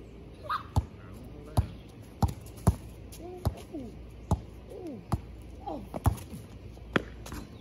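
A basketball being dribbled on a concrete driveway: about ten sharp, irregularly spaced bounces, with a few short squeaky chirps in between.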